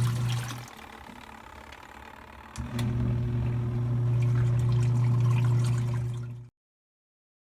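Portable washing machine's wash motor humming steadily with water sloshing in the tub. The motor stops about a second in and starts again about two seconds later. All sound cuts off abruptly near the end.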